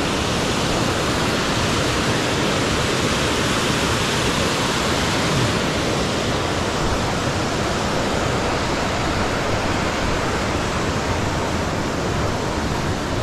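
Steady rush of heavy running water, swollen by the rain.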